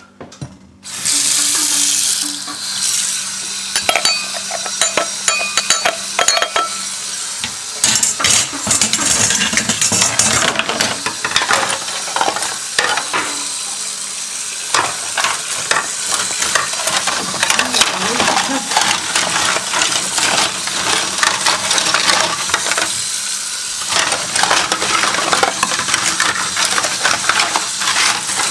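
Household noise: a dense run of small clicks and metallic clinks over a steady hiss, starting about a second in.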